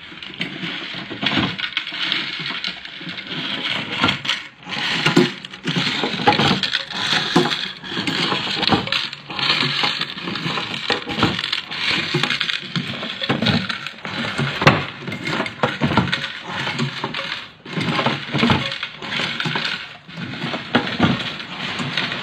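Hand-lever eyelet fixing machine worked stroke after stroke. Small metal eyelets clatter and jingle in its clear hopper and down the feed chute, with repeated clunks as the press punches and sets eyelets into a glossy banner sheet.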